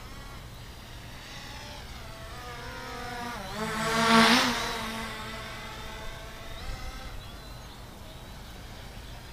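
SG-906 quadcopter's brushless motors and propellers buzzing as the drone flies low past overhead. The whine rises in pitch and loudness to a peak about four seconds in, then drops in pitch and fades as it moves away.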